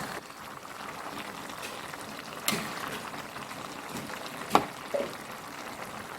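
Young jackfruit sambal in coconut milk bubbling at a simmer in a pan, with three short clicks of a utensil against the pan.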